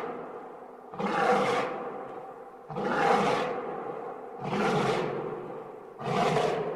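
Animal roar sound effect, repeated four times at an even pace, each roar starting suddenly and trailing off over about a second and a half.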